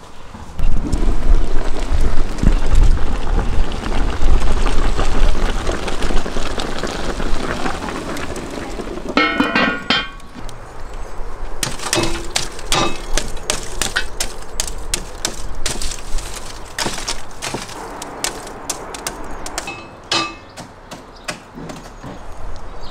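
A gas blowtorch runs with a steady rushing flame for the first several seconds. Near the halfway point there is a metallic clatter, and then a metal poker clanks and scrapes in a steel charcoal grill box as it rakes the burning coals, with many sharp knocks.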